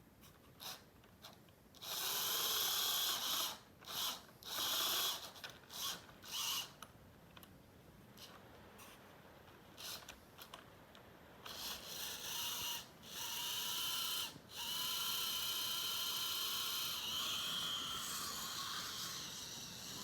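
Model Class 47 locomotive's electric motor and gears whirring with a light whine as it runs along the track. It runs in a few short bursts at first, then keeps going steadily through the second half.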